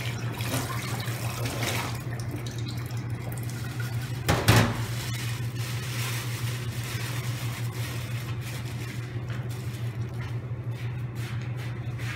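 Water running from a kitchen tap into a sink or bowl, over a steady low hum, with a brief louder knock about four and a half seconds in.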